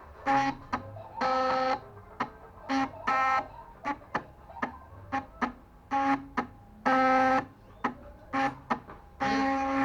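Stepper motors of a homemade mini CNC running a job. They make short buzzing tones, all at the same pitch and lasting from a fraction of a second to over a second, between many single ticks and clicks.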